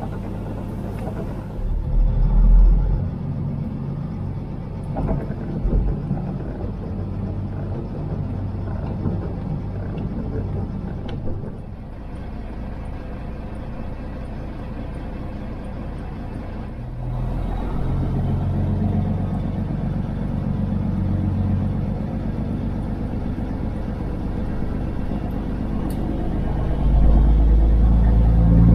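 Straight-piped Kenworth W900 semi truck's diesel engine with a steady low rumble, idling, then growing louder about halfway through as the truck pulls away. It swells again near the end as the truck gathers speed.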